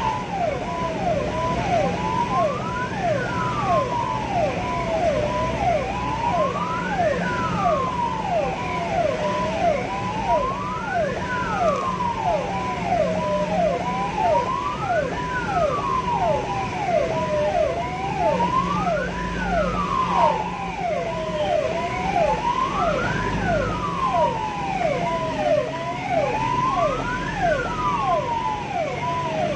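Ambulance siren sounding on an emergency run: a slow wail rising and falling about every four seconds, layered with a rapid repeating falling tone, over the vehicle's engine and road noise.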